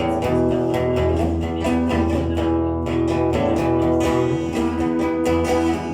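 Acoustic guitar strummed in a steady rhythm, playing chords with no singing.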